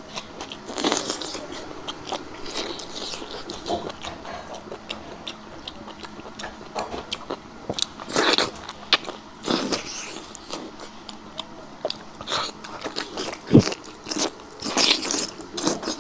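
Close-miked eating of chewy spicy offal: wet chewing, bites and mouth clicks in irregular bursts, with a single low thump near the end.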